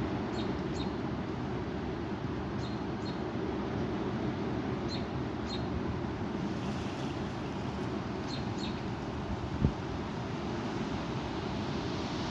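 Strong wind rumbling on the microphone, with a bird's short high chirps in pairs every two or three seconds. A single sharp thump sounds near the end.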